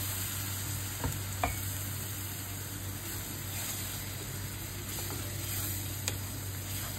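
Onion-tomato masala with ground spices sizzling in oil with a little added water as it is stirred, with a few light knocks of the spoon against the pan. This is the bhuna stage, frying the masala until the oil separates.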